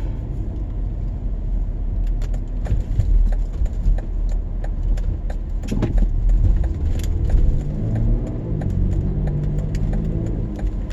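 Car driving, heard from inside the cabin: steady low engine and road rumble with small clicks and rattles, and the engine note shifting in pitch about eight seconds in.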